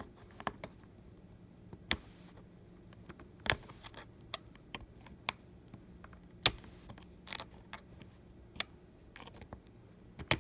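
Irregular sharp clicks and taps of small repair tools against an opened iPhone 8 Plus as its flex cable connectors are probed and pried, a dozen or so spread unevenly with one louder click about two-thirds of the way through.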